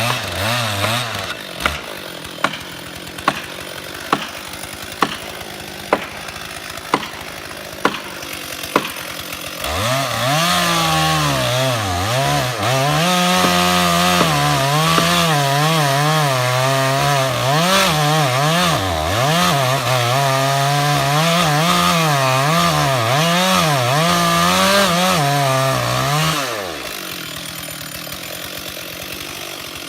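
Chainsaw cutting wood, its engine pitch rising and dipping with the load for about sixteen seconds before dropping away. Before the cut, nine sharp knocks come about once a second over a lower steady noise.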